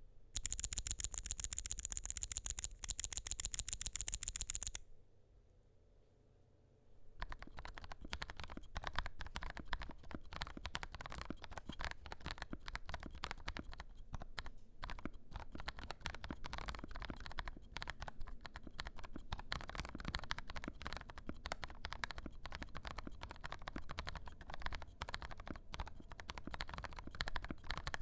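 A rapid burst of sharp, loud clicks for about four seconds, then a short pause, then steady typing on a Keebox M0110 mechanical keyboard with lubed, filmed Kailh Turbo Brown tactile switches and foam-filled case.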